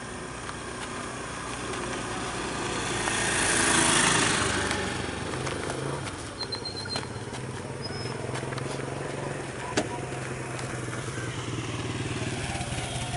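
A motor vehicle passes, its noise rising to a peak about four seconds in and then fading. A steady low engine hum carries on after it.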